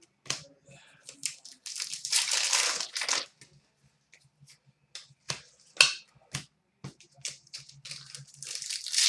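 Trading card packaging crinkling and cards being handled, with a long crackling stretch about two seconds in, several sharp clicks in the middle, and more crinkling near the end.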